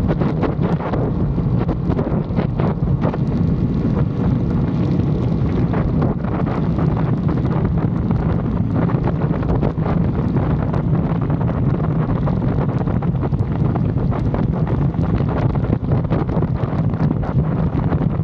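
Wind buffeting the microphone over an Aprilia Tuono 660 Factory's parallel-twin engine running at a steady speed while riding.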